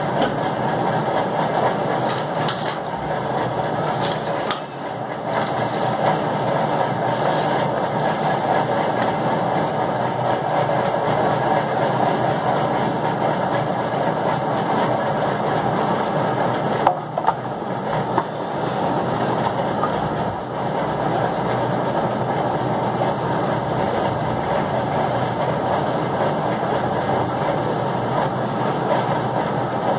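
A steady mechanical drone, like a motor running, holding even throughout. A brief sharp knock comes about seventeen seconds in.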